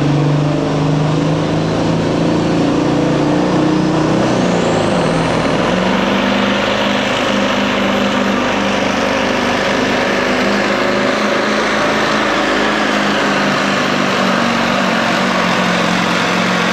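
Big-rig semi truck's diesel engine running hard at full throttle while pulling a sled, with a high whine that rises about four seconds in and then holds steady.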